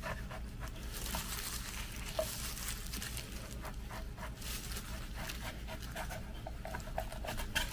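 A kitchen knife scraping and slicing along the skin of a raw yellowtail fillet as it is skinned on a wooden cutting board: a run of short, irregular scratchy rasps.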